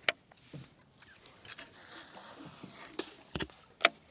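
A few sharp knocks and clacks: one about a tenth of a second in, then three more close together near the end, with a soft rushing noise between them.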